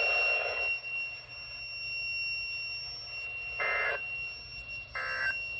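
Weather radio receiver playing the end of an Emergency Alert System Required Weekly Test: after a stretch of hiss, two short, identical bursts of the SAME digital data tone, about a second and a half apart. These are the end-of-message code that closes the alert. A steady high whine runs under the hiss.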